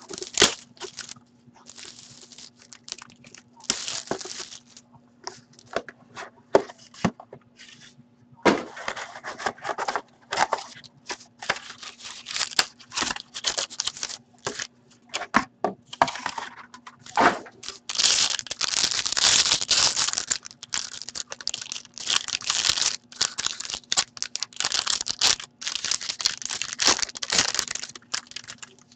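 A sealed box of Dominion hockey cards being opened by hand: scattered clicks and scratches from the box seal and lid, then paper and foil pack wrapping being torn and crinkled in quick bursts of rustling. The rustling grows denser and louder in the second half.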